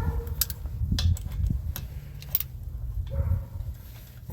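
Hand tools clicking and knocking against a tire valve stem and wheel, with low rumbling handling noise as the stuck stem is tugged at.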